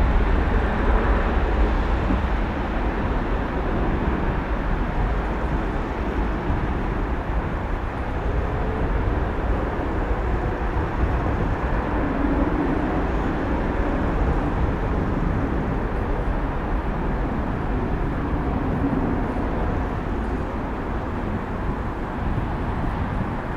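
Boeing 747-400F freighter's jet engines giving a steady, deep rumble as the aircraft departs.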